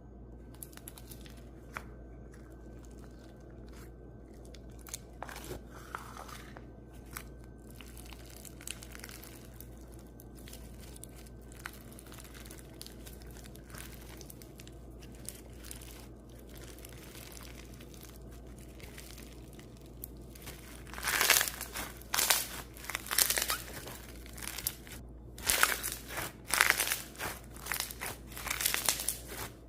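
Slime being played with by hand: soft scattered clicks at first, then from about two-thirds of the way in a series of loud crackling, crinkling squishes.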